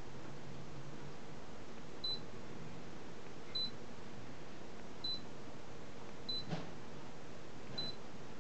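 Fujitsu AS-J22C indoor air-conditioner unit running in heating mode with a steady airflow hiss. Short high beeps come about every one and a half seconds, and a single sharp click comes about six and a half seconds in.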